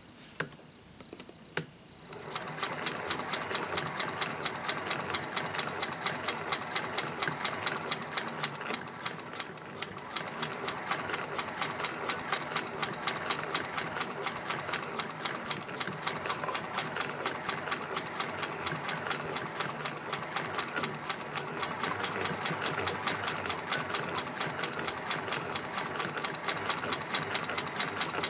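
Vintage Singer 201K hand-crank sewing machine stitching through fabric: a steady, rapid rhythmic clatter of the needle and mechanism, starting about two seconds in after a few soft clicks.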